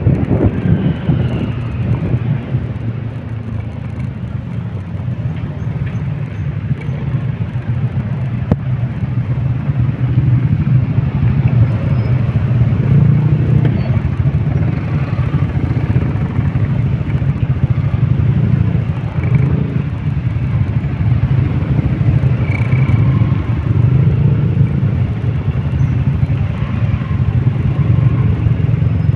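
City road traffic of cars and motorcycles running past in a steady low rumble. It dips a few seconds in and swells again from about ten seconds in.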